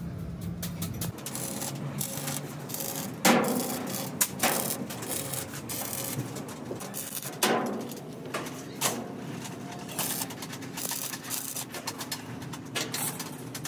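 Sheet-metal fabrication: about four sharp hammer blows on metal, each ringing briefly, with stretches of crackling arc welding in between.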